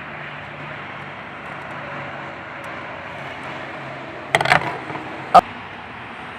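A steady hiss of background noise, with a quick cluster of sharp metallic clicks about four seconds in and one more click a second later: a screwdriver and screws working against the metal computer case as the motherboard screws are tightened.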